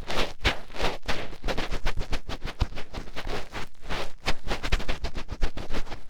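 A fingertip digging and rubbing deep in an ear right at the microphone: rough scratching, rustling strokes, several a second in an uneven rhythm.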